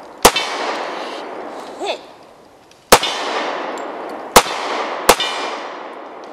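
Semi-automatic pistol fired five times at uneven intervals, each sharp crack trailing off in a long echo.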